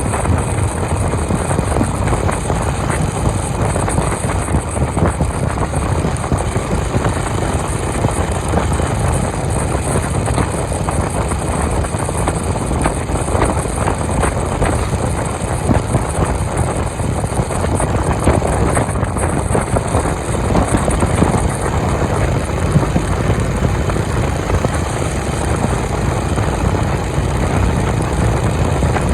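Honda CB350 motorcycle cruising at highway speed, the engine running steadily under a constant rush of wind noise.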